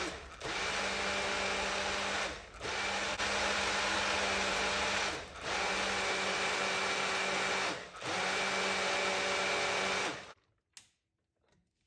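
Personal bullet-style blender running in four pulses of about two and a half seconds each, with brief dips between them as the cup is pressed down, blending vegetables, berries and water into a smoothie. The motor stops suddenly about ten seconds in.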